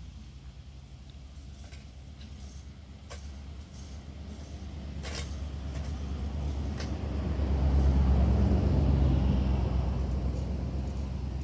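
A road vehicle driving past: a low engine rumble that swells to its loudest about eight seconds in, then fades away.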